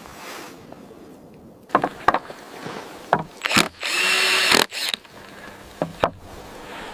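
A few sharp knocks, then a drill running for about a second in the middle, followed by more knocks.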